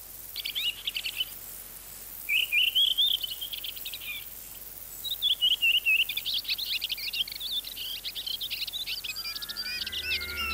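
Songbirds singing in quick, high warbling phrases, in short bouts at first and then almost without pause from about five seconds in. Music comes in faintly near the end.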